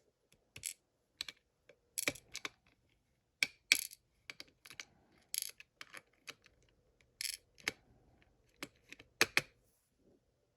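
Pins and springs of a pin-tumbler padlock clicking and tapping on a hard surface as they are taken out of the plug and counted: a string of irregular sharp metallic clicks that stop about a second before the end.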